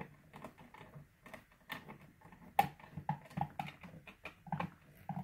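Irregular small clicks and taps of a nut driver and plastic valve parts being handled on a Fleck 5600 water softener control valve, about two or three a second, with one sharper click a little past halfway.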